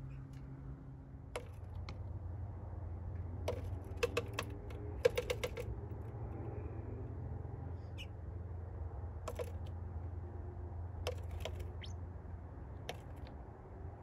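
A bird tapping its beak against a pickup truck's window glass and side mirror in short runs of quick, sharp pecks. The loudest runs come about four and five seconds in, with scattered single taps later.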